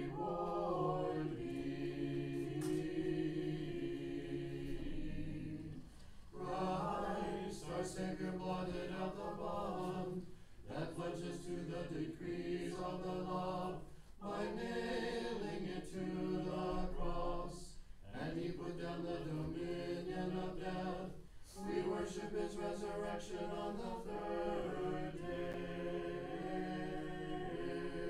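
A cappella choir singing Orthodox church chant in several phrases, with short breaks between them.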